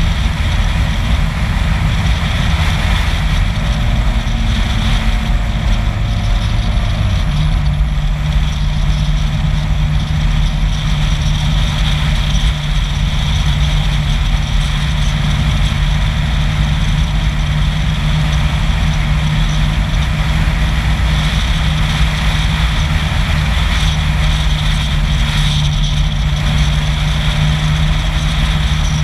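Vehicle driving at speed on an open road: steady rumble of engine, tyres and wind. A steady low engine drone sets in about seven seconds in and holds.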